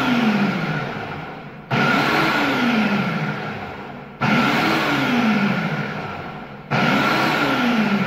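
Ninja CT680 1200-watt motor base driving the empty food-processor bowl on an automatic pulsing program: the motor kicks in sharply about every two and a half seconds, three times here. Each pulse rises briefly in pitch, then sinks and fades as the motor slows before the next one.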